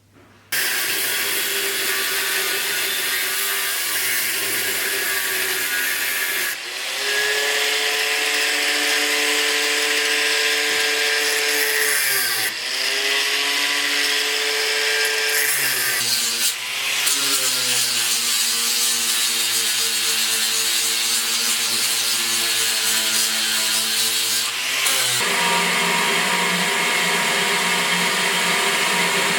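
Electric power grinder running and grinding, a dense hiss over a motor whine. The motor pitch sags and recovers several times as the work is pressed against it and eased off.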